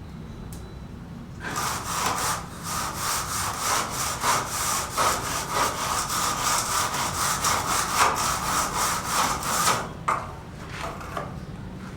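Sawing by hand: a run of rhythmic back-and-forth saw strokes that starts about a second and a half in and stops near the ten-second mark.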